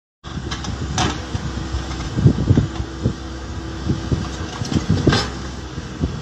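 Heavy construction machine's diesel engine running steadily, with irregular low thumps and two sharp clicks or clanks, about a second in and about five seconds in.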